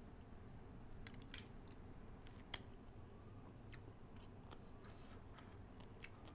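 Faint, close-miked chewing of a mouthful of spicy papaya salad with pickled crab: scattered wet mouth clicks and ticks, the sharpest about two and a half seconds in.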